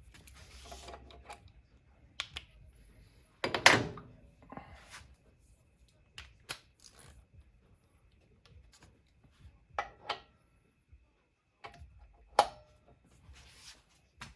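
Hand tools being handled: scattered short clicks and knocks with quiet gaps between, the loudest knock about four seconds in and another sharp one about twelve seconds in.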